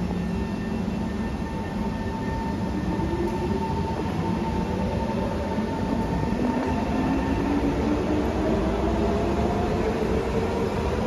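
Kawasaki Heavy Industries C151 metro train departing a station, its wheels and running gear rumbling steadily. A few seconds in, the traction motors set up a whine that climbs steadily in pitch as the train picks up speed.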